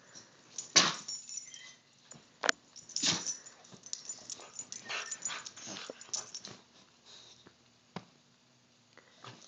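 Boxer dog making short noisy breaths and small vocal sounds as it squirms on the bed covers. It comes as a string of brief bursts, the sharpest about a second in and again around two and a half and three seconds, then it is mostly quiet near the end with one last burst.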